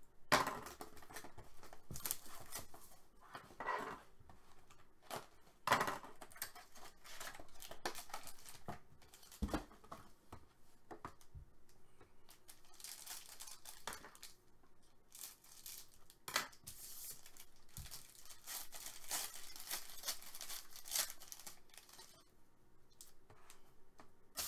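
Foil wrapper of a hockey card pack being torn open and crinkled, with cards and packaging handled: irregular tearing and rustling throughout, and a couple of soft thumps on the table.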